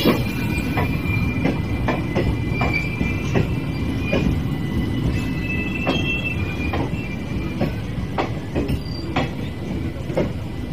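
Passenger train coaches rolling past slowly: a steady low rumble with irregular wheel clacks over rail joints, and a thin high wheel squeal that comes and goes.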